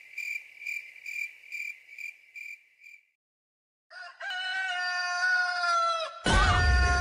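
A cricket chirping in a steady pulse, about two chirps a second, fading out after about three seconds; then a rooster crows once, a single long call of about two seconds. Music with drums comes in near the end.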